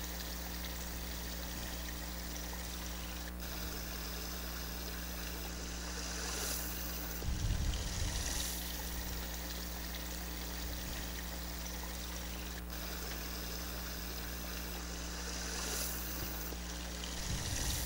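Shallow water running steadily in a roadside ditch, with two brief low rumbles about seven and seventeen seconds in.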